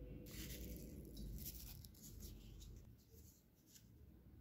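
Faint dry scratching and rustling of a spoon adding sugar to flour in a steel bowl, with a few soft ticks. It drops to near silence after about three seconds.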